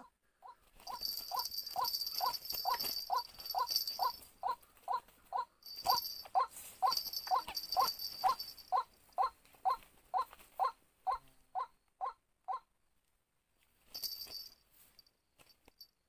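White-breasted waterhen caught in a snare, giving a long even series of short calls, about two a second, that stop a few seconds before the end. A high, steady buzz comes and goes behind the calls.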